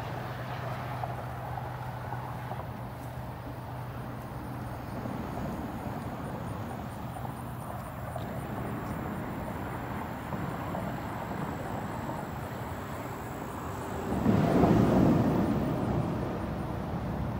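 Steady road traffic noise from the I-75 interstate, a continuous rumble of passing vehicles. It swells louder for a couple of seconds about fourteen seconds in.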